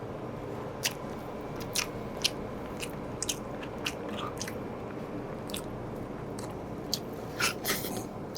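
Close-up eating sounds: chewing with scattered crisp, crunchy bites and mouth clicks, about a dozen spread irregularly over a steady low room hum.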